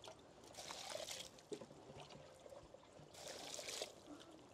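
Water poured from a plastic jerrycan into a bucket of feed mash, faint, in two short spells: about half a second in and again a little after three seconds.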